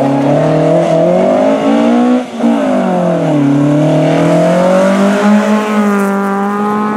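Rally car engine revving hard: the pitch climbs, cuts off sharply about two seconds in as the driver lifts off for the corner, sinks, then climbs steadily again as the car accelerates away and holds high near the end.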